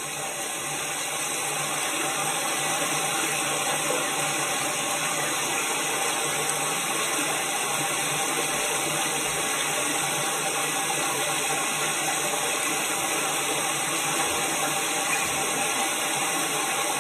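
Recording of a babbling brook: a shallow stream running over rocks, a steady rush of water that fades in over the first two seconds and then holds level.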